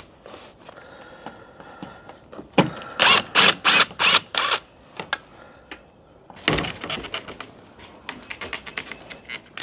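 Metal hardware clicking and rattling as a latch is taken off an old screen door: a run of five or six sharp strokes about three seconds in, a longer scrape about six and a half seconds in, and a quick patter of clicks near the end.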